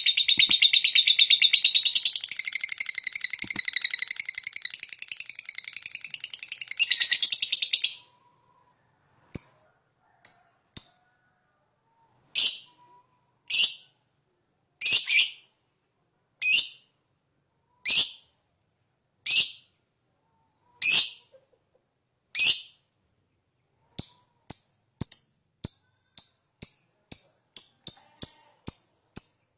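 Green lovebird chattering in a fast, unbroken stream of high chirps and trills for about eight seconds, then stopping. After it come single short jingling shakes like a tambourine, about one every second and a half, speeding into a quick rhythm near the end.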